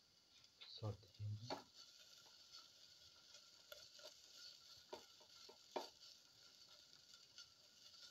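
Faint sizzling of shallots, ginger and garlic frying in oil in a steel pan, with a spatula scraping and clicking against the pan as they are stirred. Two dull knocks come about a second in.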